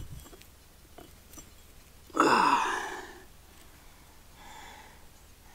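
A person's breath close to the microphone: one loud, breathy exhale about two seconds in that fades within a second, and a fainter breath later. Two small clicks come about a second in.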